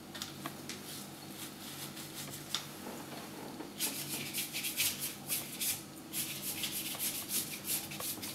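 Paintbrush strokes rubbing and scrubbing across watercolour paper: short, soft, brushy strokes, sparse at first and coming quickly one after another from about halfway through. A faint steady hum lies underneath.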